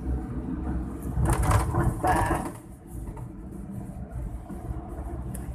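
Dhuandhar waterfall's falling water heard as a steady low rumble, swelling louder for about a second just after the start.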